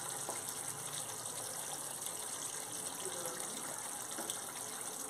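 Yogurt-based fish curry bubbling and sizzling in a pan over medium heat: a steady hiss.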